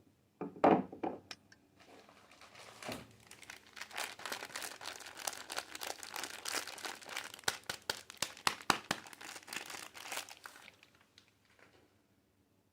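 A bar of soap being unwrapped by hand, its wrapper crinkling. A few sharp loud strokes about half a second in are the loudest part, then about nine seconds of continuous crinkling with many small crackles, dying away near the end.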